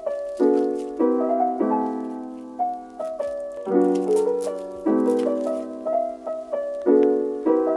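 Piano music: chords struck every second or so with a melody line above, each note fading after it is struck.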